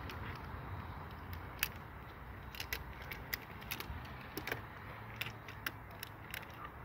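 Pliers working a spring hose clamp on a coolant hose: a string of sharp, irregular metallic clicks and ticks, coming thicker from about halfway in.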